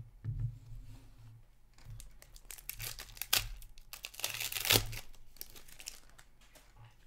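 Foil trading-card pack being torn open by hand, its wrapper crinkling in uneven bursts that are loudest about three and a half and five seconds in.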